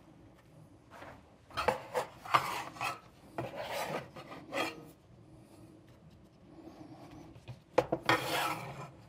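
Knife blade cutting through a rolled-out sheet of pie-crust dough and scraping across a wooden cutting board, in three spells of short rasping strokes with a few light knocks.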